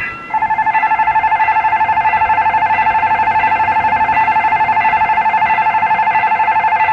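Railway level-crossing warning bell ringing rapidly and steadily, an electronic ding-ding tone that starts a moment in and signals that a train is approaching.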